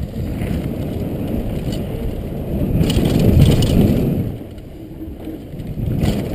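Downhill mountain bike rolling fast over a dry, dusty, rocky trail: tyre rumble and wind on a helmet-mounted camera's microphone, swelling about three seconds in and easing off for a second or so past the middle.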